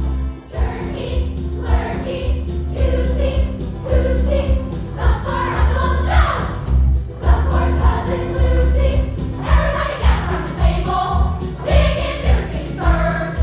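Christmas music: a choir singing over a band with a steady, pulsing bass line.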